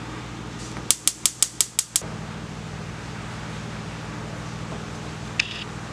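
Gas range oven's electric igniter clicking rapidly as the oven knob is turned to light it: seven sharp clicks in about a second. A steady low hum runs underneath, and a single click comes near the end.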